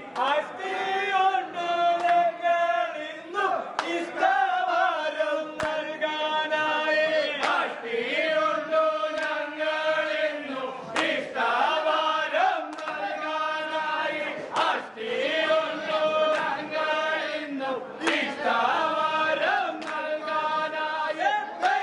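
A group of men chanting together in unison, in phrases of held, sung notes with short breaks between them.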